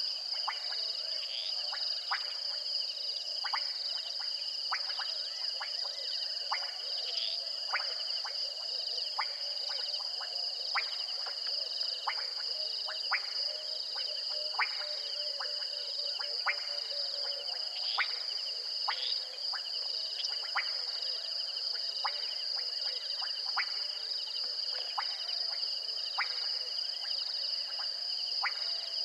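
Night chorus: insects trill steadily and high-pitched, over frogs giving short sharp clicking calls about once a second.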